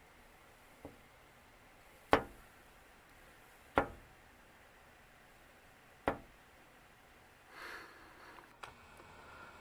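A few sharp knocks at irregular intervals against a quiet background, three of them loud, then a brief rustling near the end.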